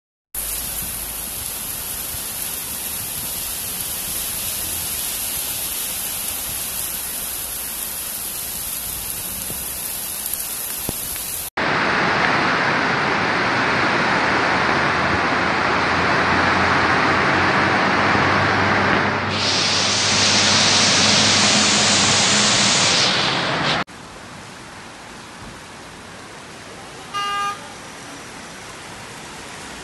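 Heavy rain pouring down with a steady hiss, in three separate recordings that cut from one to the next. The middle recording is louder, with a low hum under the rain and a sharper hiss for a few seconds near its end. A short beep sounds near the end.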